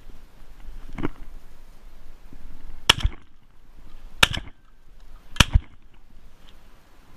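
Three shotgun shots about a second and a quarter apart, each a sharp report with a short echo after it. A fainter knock comes about a second in.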